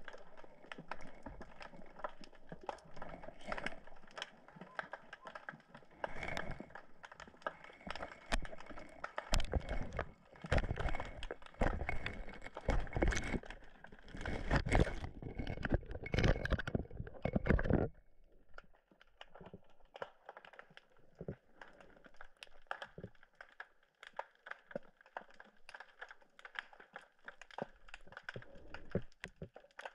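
Busy crackling and clicking heard underwater through a submerged camera, with louder knocking and rushing handling noise that stops abruptly about two-thirds of the way in, leaving fainter steady crackle.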